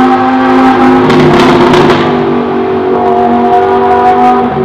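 Lamborghini Huracán LP610-4's V10 through an iPE aftermarket exhaust, running at a steadily held pitch; the tone dips about two seconds in and then holds again.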